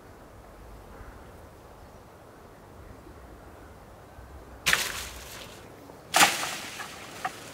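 A long wooden pole striking the leafy branches of a chestnut tree twice, to knock the chestnuts down. The first hit comes about four and a half seconds in and the second about a second and a half later. Each is a sharp crack followed by a brief rustle of leaves, and a couple of faint ticks follow.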